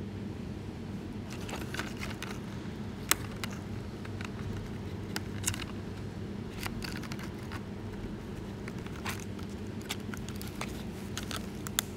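Scattered small clicks and taps of hands handling the plastic body, canopy and a tiny screw of a small RC helicopter, the sharpest about three seconds in, over a steady low hum.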